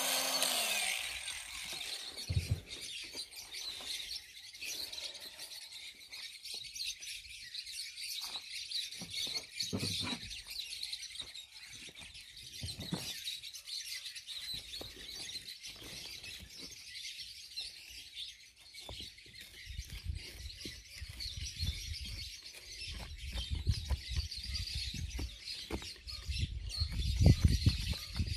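A power carving tool winds down and stops about half a second in, leaving birds chirping over a steady high background hiss. A hand carving tool scrapes and knocks against the elm's dead wood now and then, loudest near the end.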